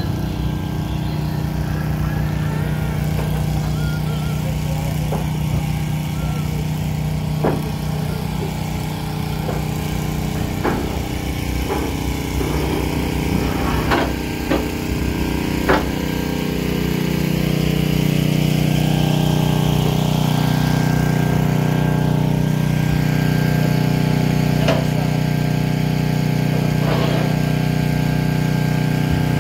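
An engine running steadily at idle, getting louder a little past halfway through, with several sharp metal clanks from a steel trailer loading ramp being handled.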